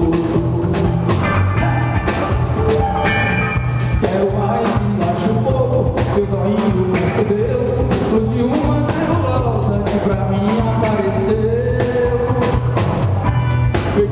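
Live band playing a forró-rock song: drum kit, bass and guitars with a wavering melodic lead line over a steady beat.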